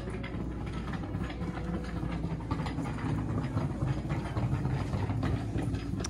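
Kitchen towels on plastic hangers clicking and rattling against metal display hooks as they are flipped through and one is pulled off, over a low steady hum.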